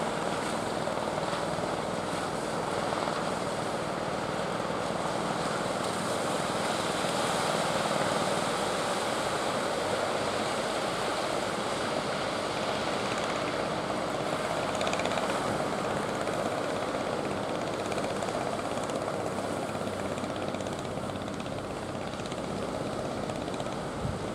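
Engines of an outrigger fishing boat running under way, a steady distant drone over the sound of surf.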